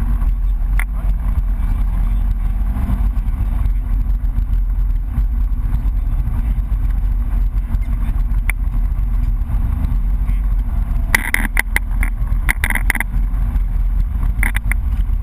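BMW E30 rally car's engine running steadily as the car drives at speed, heard from inside the cabin with heavy road and tyre noise. About eleven to thirteen seconds in, and again just before the end, there is a run of short, sharp crackles.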